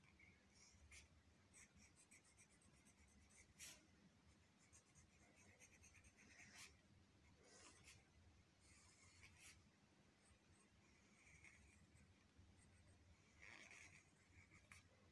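Faint scratching of a pencil on workbook paper as a drawing is sketched, in short irregular strokes with pauses between them.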